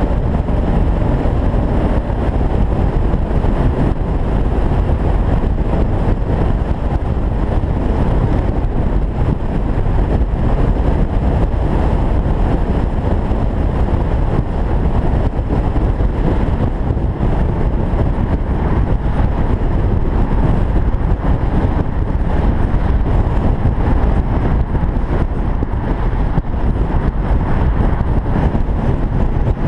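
Steady, loud rush of wind and road noise from a convertible cruising at highway speed with the top down, heaviest in the low rumble, with wind buffeting the microphone.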